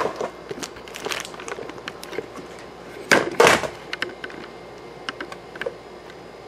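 Handling noise: scattered clicks and knocks, with two louder rustling, scraping bursts about three seconds in.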